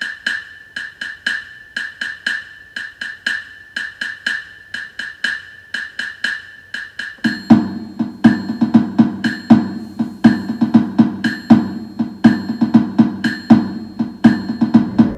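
Percussion-only intro music: a quick, even pattern of high, dry woodblock-like strikes, joined about seven seconds in by lower, louder drums.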